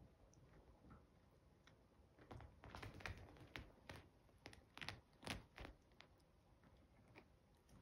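Near silence with faint scattered clicks and taps from the chihuahua puppies moving about, busiest through the middle few seconds.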